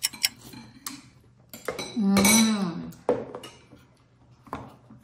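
Metal spoons clinking and scraping against ceramic soup bowls in a few separate clinks, with a brief hum of a voice about two seconds in. A sharper click comes near the end as a small plastic container is handled.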